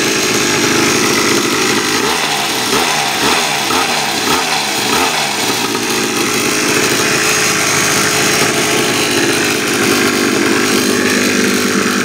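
Small 49cc two-stroke pocket dirt bike engine running, its pitch rising and falling a few times between about two and five seconds in, then steady. It runs on a newly fitted carburetor, which cured its failure to start.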